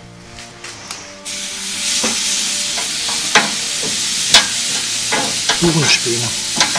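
Beech wood chips put on glowing charcoal through a grill grate: a sudden loud, steady hiss starts about a second in, with sharp crackles and clicks scattered through it.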